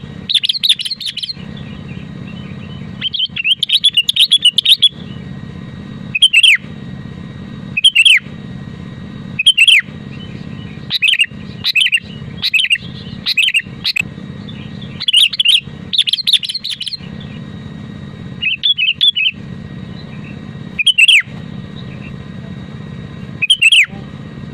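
Sooty-headed bulbul (kutilang) singing: short bursts of loud, chirpy notes, some falling sharply in pitch, repeated every second or two. A steady low hum runs underneath.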